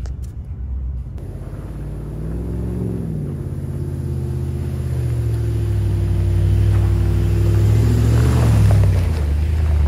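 2024 Ram Power Wagon's 6.4-litre HEMI V8, exhaust through a Magnaflow muffler, crawling at low revs as the truck drives up the dirt trail, its revs briefly rising and falling about three seconds in. The engine grows steadily louder as the truck comes closer.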